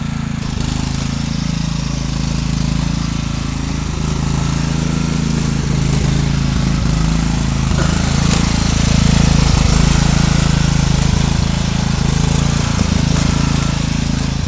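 Riding lawn mower engine running steadily as the mower is driven across grass, a little louder around the middle.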